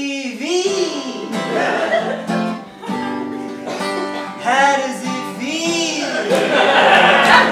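A man singing notes that bend up and down while strumming a steel-string acoustic guitar.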